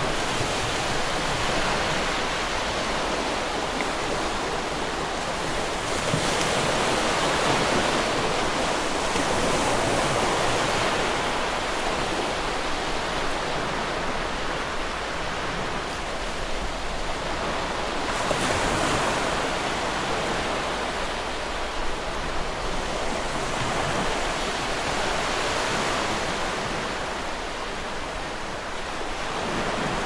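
A steady rushing noise, like surf or strong wind, that swells and eases every few seconds.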